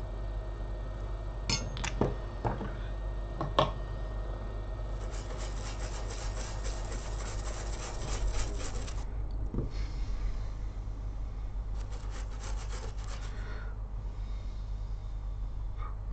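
A brush scrubbing over a freshly reballed iPhone baseband CPU in cleaning liquid, in two bursts of rapid scratchy strokes a few seconds each. Before them come a few light clicks of a tool on the chip.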